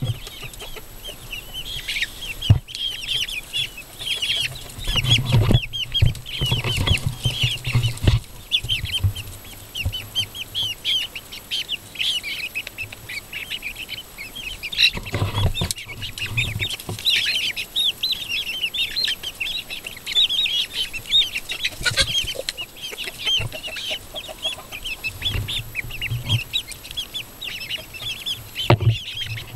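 A flock of young chickens peeping and cheeping continuously in quick, overlapping high calls as they crowd a trough feeder, with a few sharp knocks and some low bumping along the way.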